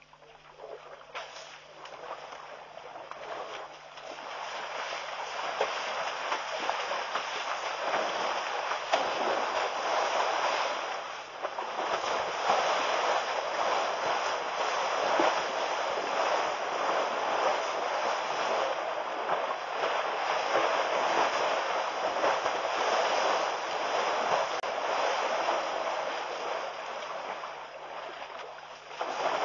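African elephants splashing and churning the water as they bathe in a muddy waterhole: a dense rushing, splashing noise that builds over the first few seconds and then holds steady.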